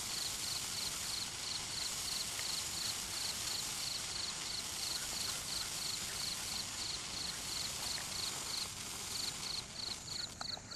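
Sparkler burning with a steady fizzing hiss, breaking up into scattered crackles near the end as it burns out. A cricket chirps steadily behind it, about three chirps a second.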